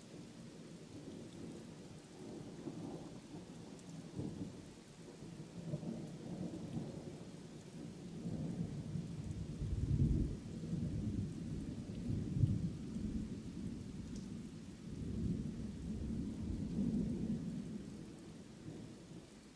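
Heavy rain falling steadily while thunder rolls, a deep rumble that swells in waves, loudest about halfway through and again a little later, then eases off near the end.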